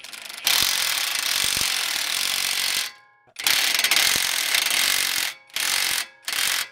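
Cordless impact driver hammering in four bursts, two long ones of about two seconds each, then two short ones, as it drives the nut on a wheel stud installer to pull a new wheel stud into the hub.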